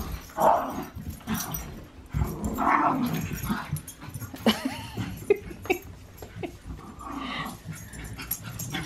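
Miniature schnauzers playing rough, with play growls and a few short, sharp yips about halfway through.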